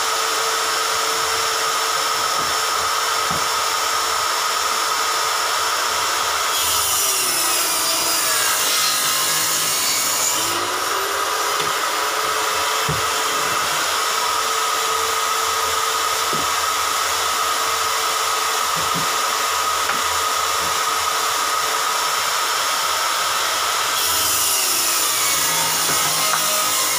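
Homemade sliding-table saw running with a steady motor whine, cutting twice through a panel. A louder, hissing cut starts about six seconds in and lasts about four seconds, and another comes near the end. During each cut the running tone sags, then climbs back as the blade comes free.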